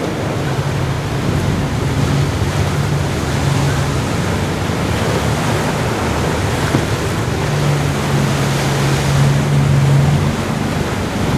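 Ocean surf washing on the beach, with wind buffeting the microphone. A steady low drone runs under it, strongest in the first few seconds and again for a few seconds near the end.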